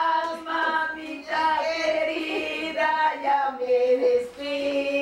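A woman's voice singing, with long held notes that waver and glide in pitch.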